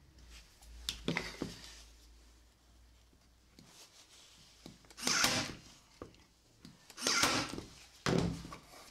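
Bosch cordless electric tacker firing into a thin wooden strip on a pine board, three sharp shots about 5, 7 and 8 seconds in, with lighter clicks and knocks about a second in as it is set in place.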